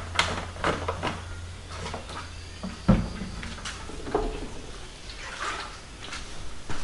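Objects being handled on a workbench: a series of light clicks and knocks, with one sharper knock about three seconds in and some scraping or rustling near the end, over a low steady hum.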